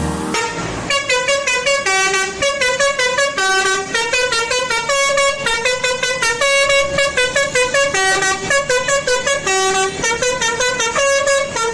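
Multi-tone musical bus air horn (a "telolet" horn) playing a quick melody of short, repeated notes that jump between pitches.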